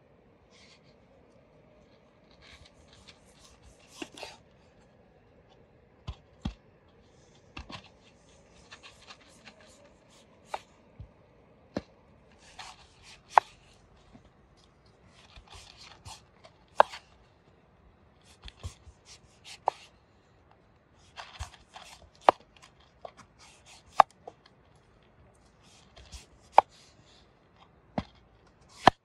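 A large kitchen knife shaving the rind off a breadfruit on a wooden cutting board: scraping strokes through the skin, with a sharp tap of the blade on the board every second or two.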